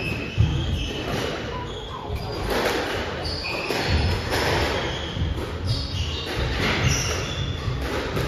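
Squash rally: the ball cracking off rackets and the court walls, with short high shoe squeaks on the court floor and thudding footsteps, repeating irregularly.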